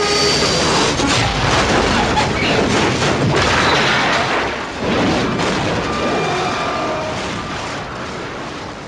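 Staged airliner crash: a loud, dense crash and explosion noise with sharp knocks through it, dipping about five seconds in, surging again, then slowly fading.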